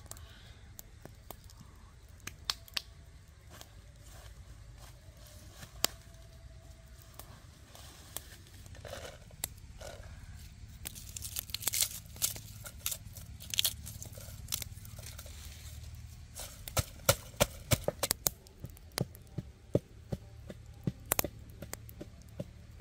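Irregular sharp clicks, knocks and rustles of food and cooking things handled by hand, sparse at first and coming thick and fast in the second half.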